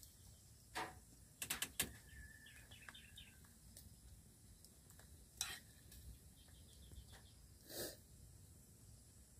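A metal ladle knocking and scraping in a cooking pot of soup, with a quick run of four clicks about a second and a half in and single knocks later on. A bird chirps faintly in the background.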